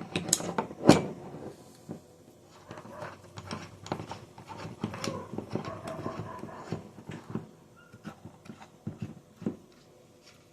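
Metal parts of a .22 rifle being handled and fitted back together: a few sharp knocks at the start, then a run of small clicks and rattles, and another knock near the end.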